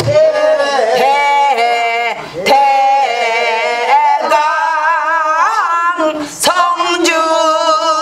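A woman singing pansori solo, long held notes bending and wavering in pitch, with a few sharp knocks in between.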